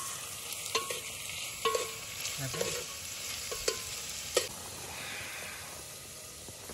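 Chopped onions frying for a tadka in an aluminium pot on a portable gas stove: a steady sizzle, with a spoon knocking against the pot several times in the first few seconds.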